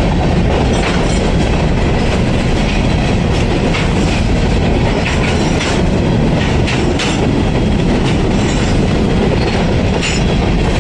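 Covered hopper cars of a freight train rolling past: a loud, steady rumble of steel wheels on rail, with scattered sharp clicks and clanks from the wheels and couplings.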